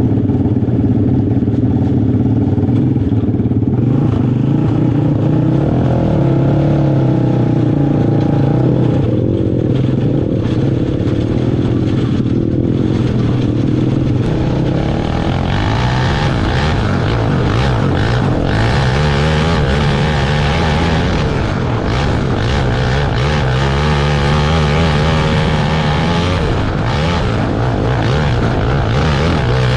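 Open 500 outlaw kart engines at racing speed, the pitch rising and falling continuously as they throttle up and back off.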